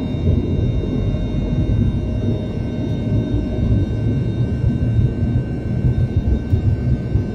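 Jet airliner rolling fast down the runway, heard from inside the cabin: a loud, steady low rumble from the engines and wheels, with thin, steady engine whines above it.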